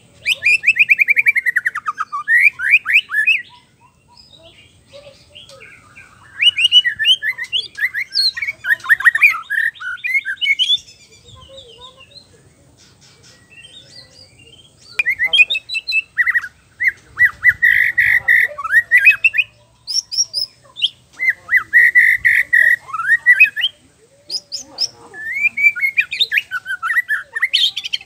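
Male white-rumped shama singing in four bouts separated by pauses of a few seconds. Each bout is a fast run of varied whistled notes and trills. The first opens with a rapid series of notes sliding down in pitch.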